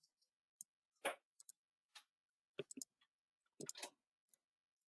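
Faint, scattered clicks of a computer mouse over near silence, some coming in quick clusters of two or three.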